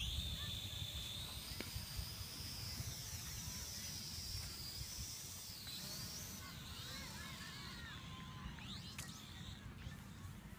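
Small quadcopter drone's motors and propellers whining high, the pitch wavering up and down as the throttle changes. Wind rumbles on the microphone underneath.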